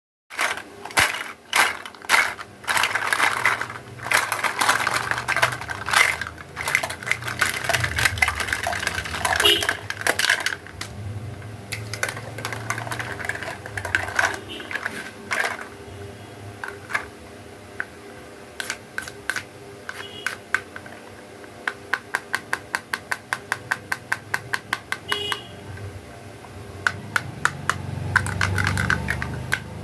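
Hard plastic toy pieces being handled, with many sharp clicks and taps: a dense, irregular clatter at first, then a quicker run of even ticks about two thirds of the way through.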